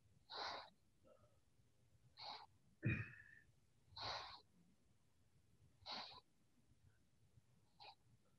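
A person's quick, audible breaths, one about every two seconds, five in all, paced to a side-to-side seated yoga twist (inhale one way, exhale the other). A soft thump about three seconds in is the loudest sound.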